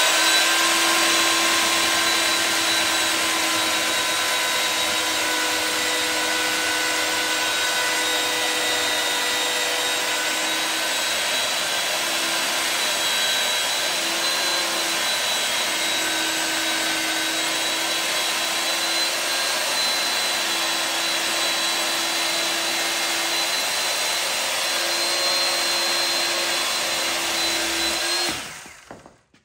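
SKILSAW SPT-55 carpentry saw, a corded electric 16-inch chain beam saw, running at full speed with a steady whine as its chain cuts across the end of a pine timber. It cuts out near the end.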